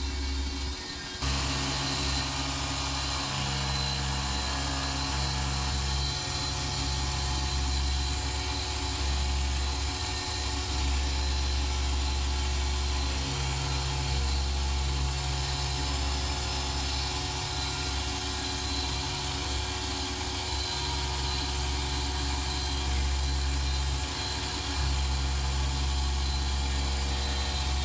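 Home-built CNC milling machine cutting aluminium with an end mill: the spindle and cut run steadily, while a strong low hum comes and goes every one to few seconds as the machine moves through its toolpath.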